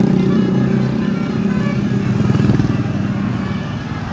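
A large motor vehicle's engine running close, with a rapid even pulsing and a steady low drone that fades out about halfway through.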